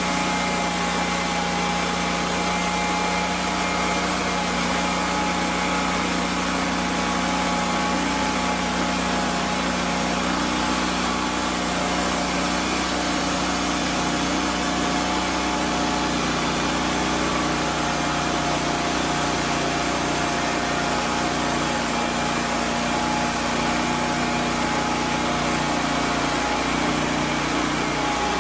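Portable band sawmill cutting through an oak trunk: the mill's engine running steadily under load while the band blade saws along the length of the log.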